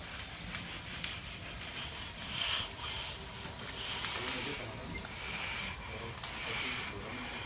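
Hand groover scraping along fresh concrete in repeated strokes, cutting a control joint so the slab won't crack.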